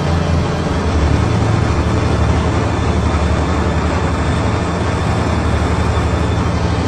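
Steady in-flight aircraft cabin noise: a continuous low engine drone under the rush of air, heard from inside the cabin.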